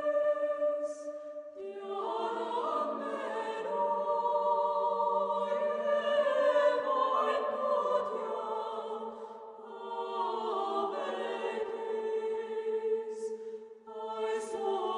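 A choir singing a slow sacred hymn in long, held notes, pausing briefly between phrases a few times.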